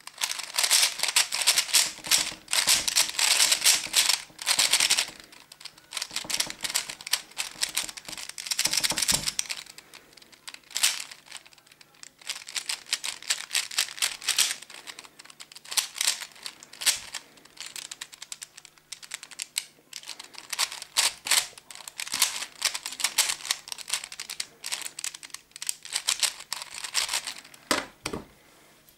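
Dayan Lingyun 3x3 speed cube, fitted with torpedo pieces, turned rapidly by hand: fast runs of plastic clicking and clacking as the layers are flicked, in bursts with short pauses between.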